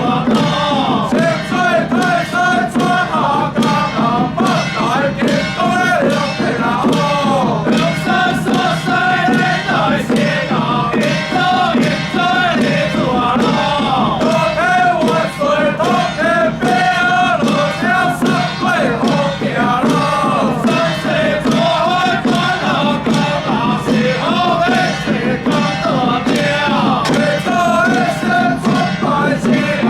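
Taoist xiaofa ritual troupe chanting incantations in unison over continual percussion strikes.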